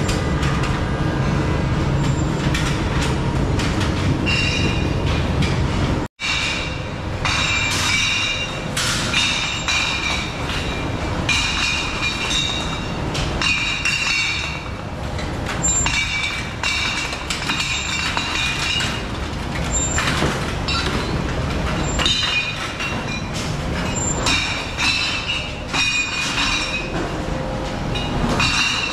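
Shoe factory production-line machinery running: steady machine noise with high squealing tones that come and go every second or so. There is a brief break about six seconds in.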